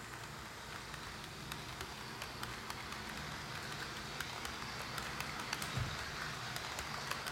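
HO scale model passenger cars rolling past on the track, their wheels making a steady rattling hiss with many small irregular clicks. There is a brief low thump near the end.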